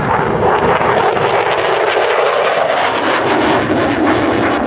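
F-16 fighter jet engine at high power, a loud continuous roar with a dense rapid crackle that sets in about a second in.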